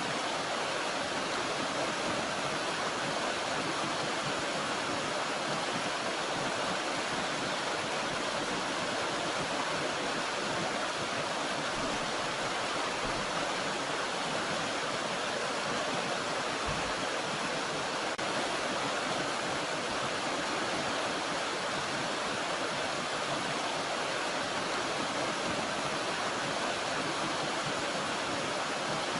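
Steady rushing of running water from a small mountain stream, an even hiss with no change.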